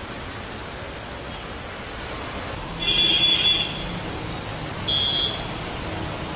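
Steady rush of heavy rain and street traffic, cut through by two short, high-pitched vehicle horn honks: a longer one about three seconds in and a shorter one about two seconds later.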